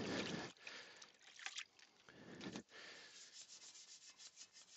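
Wet Vikan soft-bristled wheel brush scrubbing inside the barrel of an alloy wheel. A few separate rubbing strokes give way to quicker short strokes near the end.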